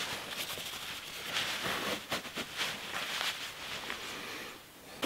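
Rustling of a Pertex nylon shell on a Montane Prism insulated jacket as the wearer moves in it, an irregular soft swishing and crinkling that fades out near the end.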